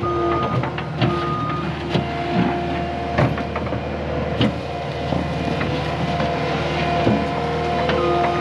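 Skid steer's diesel engine running steadily under load, with held whining tones that step up and down in pitch and scattered sharp metallic clanks and knocks from the machine working.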